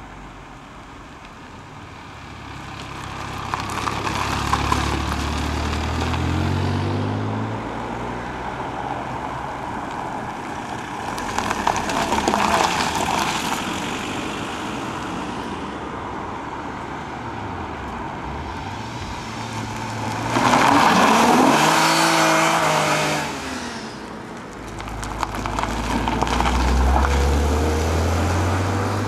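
Cars driving past one at a time, about four in turn, each engine revving up as it pulls away. The third pass, about two-thirds of the way through, is the loudest.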